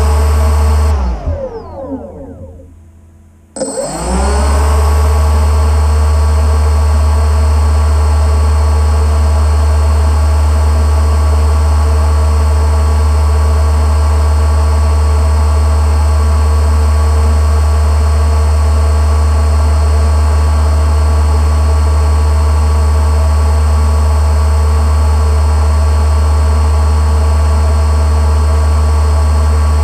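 Boat engine winding down in pitch, a brief lull, then coming back sharply about four seconds in and running steadily at high revs with a heavy low rumble.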